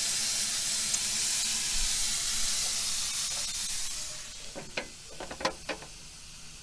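Steam hissing steadily inside the open smokebox of an 1889 Porter wood-fired steam locomotive, cut down sharply about four seconds in as the smokebox door is swung shut. Several short metal clanks follow as the door and its latch are secured.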